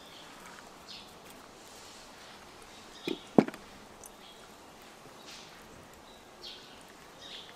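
Faint outdoor background with short bird chirps every second or two, and two short knocks close together about three seconds in, the second much louder.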